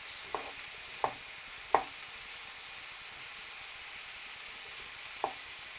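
Pumpkin pieces sizzling steadily in olive oil in a frying pan while being stirred with a spatula. The spatula clicks against the pan three times in the first two seconds and once more near the end.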